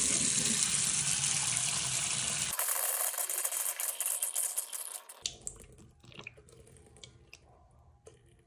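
Bathroom sink faucet running into the basin as the hot water lines drain with the supply shut off. The stream runs steadily and then dies away about five seconds in to a faint dribble.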